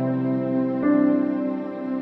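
Background music of slow, sustained chords, with a new chord coming in a little under a second in.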